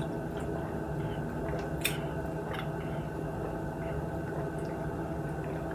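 A person chewing fried chicken, with a few sharp crunching clicks, the clearest about two seconds in, over a steady low hum.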